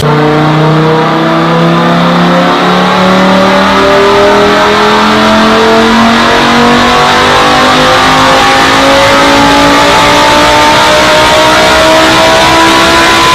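Supercharged V8 engine pulling hard under load, its pitch climbing slowly and steadily through the revs for more than ten seconds.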